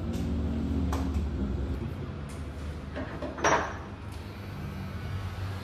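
Light clicks and handling noises over a steady low room hum, with one short, loud rushing noise a little past halfway.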